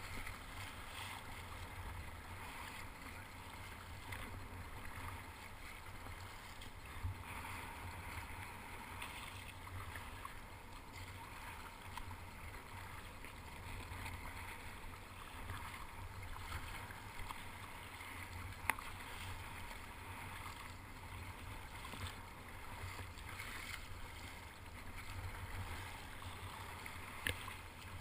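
Sea water splashing and sloshing around a kayak as it is paddled through choppy surf, over a steady low wind rumble on the microphone. A few sharp clicks stand out, the loudest about two-thirds of the way in.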